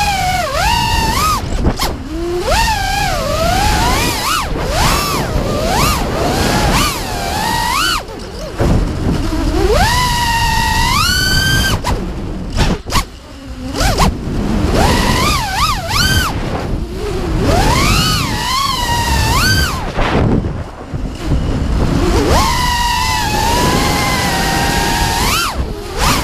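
Brushless motors and propellers of a 5-inch FPV quadcopter (Lumenier 2206 2350kv motors, HQ 5x4x4 props) whining in flight, the pitch sweeping up and down again and again as the throttle is punched and eased, over rushing air noise. The whine falls away briefly near the middle and again later as the throttle is cut.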